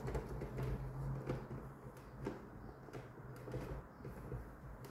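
Light knocks and clicks from hands handling parts and wires inside the open top of a WMF Lumero espresso machine, over a low steady hum.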